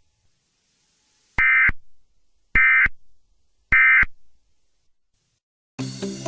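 Emergency Alert System end-of-message SAME data tones: three identical short digital bursts about a second apart, signalling that the alert is over. Music starts near the end.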